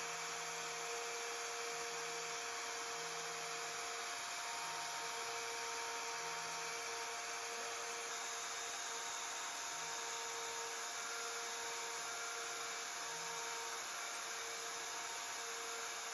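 CNC router's 710-watt router spindle running with a steady whine while a 15-degree V-bit engraves walnut 1.5 mm deep. Under it, a lower hum comes and goes.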